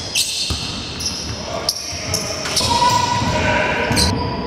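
Basketball game on a hardwood court: sneakers squeaking in short chirps every half second to a second, and a basketball bouncing, with voices calling out from about halfway through.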